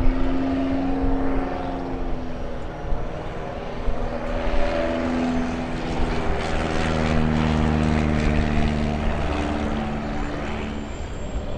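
Piston engine and propeller of a light high-wing taildragger flying low overhead. The engine note shifts down and back up in pitch several times as it manoeuvres, and it is loudest about two-thirds of the way through.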